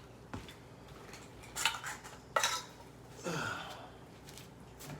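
Cat food bowls and a utensil clinking and scraping in a few short, separate clatters about a second apart.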